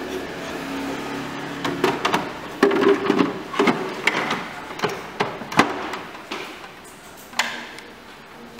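Plastic waste bin of a GBC Auto+ 60X paper shredder being handled and slid back into the machine: a run of irregular plastic knocks and clatters. The loudest come about two and a half and five and a half seconds in, and a last sharp knock comes about seven and a half seconds in.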